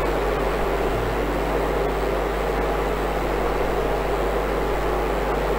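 Steady, even rush of a fan-driven room cooling unit running, with a low hum under it. A few faint small clicks of plastic model parts being handled.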